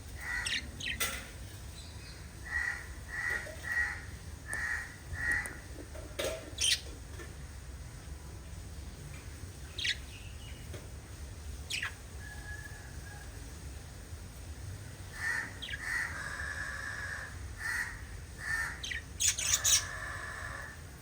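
Pet lovebirds chirping and squawking: a run of short chirps about half a second apart, sharp single calls here and there, and longer harsh, buzzy calls near the end, over a low steady hum.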